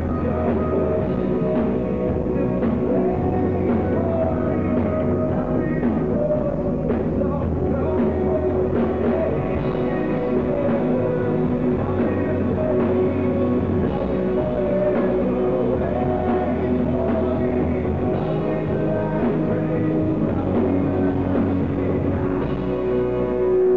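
Live rock band playing: male lead vocals over electric guitars and a drum kit, steady throughout.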